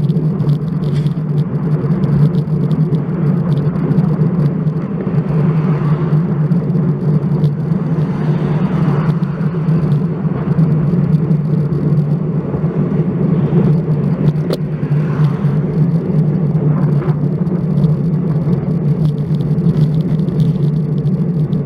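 Steady wind and road noise picked up by an action camera mounted on a road bike while riding, a constant low rumble with light rattling.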